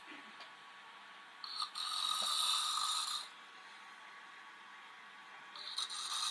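A man snoring in his sleep: two long noisy snores, the first about a second and a half in and the next starting near the end, with quiet between them.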